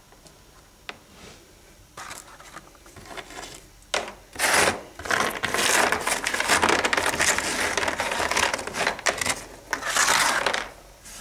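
A plaster rock casting rubbed on a sheet of sandpaper to shape its edge to fit the next rock: a coarse scraping in repeated strokes that grows loud about four seconds in and stops near the end, after a few light knocks and scrapes.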